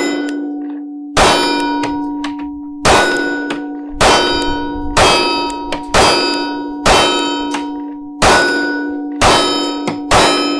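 Steel target plate clanging and ringing as pistol rounds hit it, nine hits roughly a second apart, each leaving a steady ring that slowly dies away.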